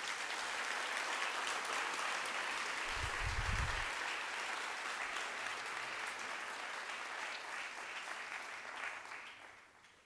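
A large seated audience applauding steadily, with a brief low bump about three seconds in; the clapping fades out over the last second.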